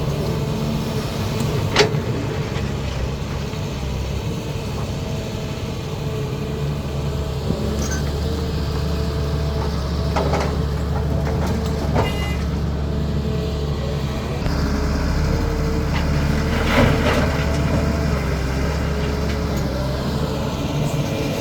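Caterpillar 320D excavator's diesel engine running steadily as it works, with a few sharp knocks and clanks, the loudest a little under two seconds in and another about seventeen seconds in. The engine note grows louder a little past halfway.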